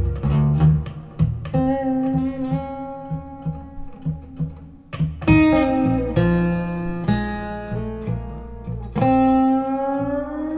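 Blues guitar solo with string bends over a bass line, recorded music played back through a Mark Audio Alpair full-range driver in a back-loaded horn loudspeaker.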